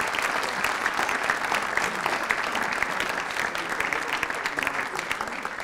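An audience applauding, a dense, steady clatter of many hands clapping.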